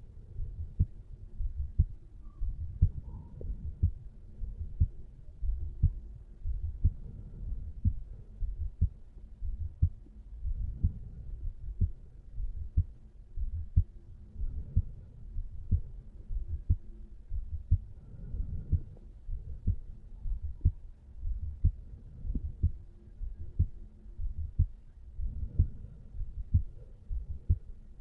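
Heartbeat of a resting adult man heard over the mitral valve area: a regular lub-dub rhythm of low, dull thumps.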